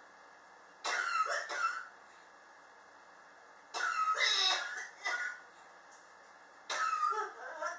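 A person coughing in three bouts of several quick coughs each, about three seconds apart: a chronic cough that has persisted for years.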